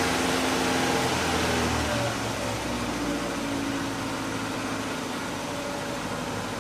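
Car engine idling steadily, with a low rumble that eases off a little about two seconds in.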